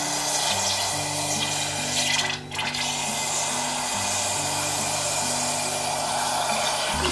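Aerosol parts cleaner spraying in a long steady hiss into a plastic tub, with a brief break about two and a half seconds in, washing grease off small fishing-reel parts.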